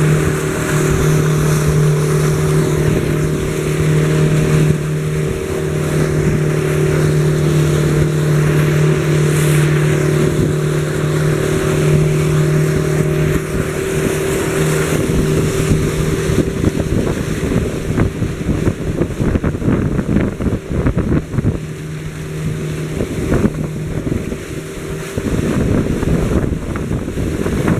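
Motorboat under way at speed: a steady engine drone over water rushing and splashing past the hull, with wind on the microphone. The engine note fades near the end while the water noise goes on.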